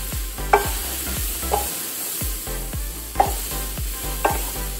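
Sliced brown button mushrooms and garlic sizzling in butter in a frying pan while a wooden spatula stirs them, with a few knocks of the spatula against the pan, the clearest about half a second and about three seconds in.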